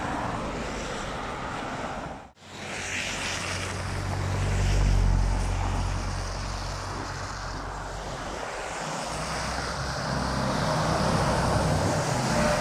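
Road traffic passing on a wet street: a steady wash of tyre and engine noise, cut briefly about two seconds in. A heavy diesel engine's low rumble swells and fades near the middle, and a semi truck's engine grows louder near the end as it comes close.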